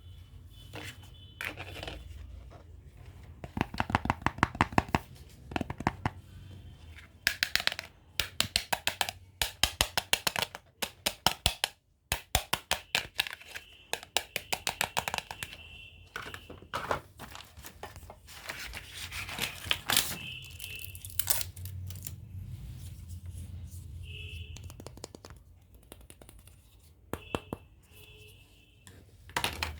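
Packaging being torn open and crinkled during an unboxing, with several runs of quick ripping crackles and a few short squeaks.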